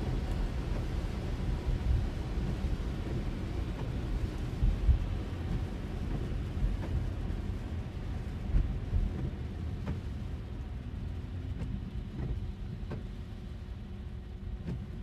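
Cabin noise of a Tesla Model Y driving in the rain: a steady low rumble of tyres on wet road, with a few faint ticks in the second half.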